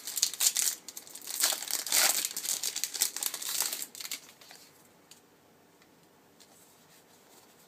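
Foil Yu-Gi-Oh booster pack wrapper crinkling and tearing as it is opened, for about the first four seconds; after that only a few faint clicks.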